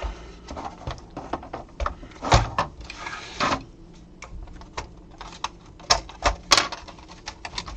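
Irregular plastic clicks, snaps and scraping as a part of a PlayStation 4 CUH-1215A console is gently pried off. A few sharp snaps stand out, and about three seconds in there is a short scrape.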